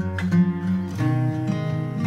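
Background music: acoustic guitar strumming, with a chord change about a second in.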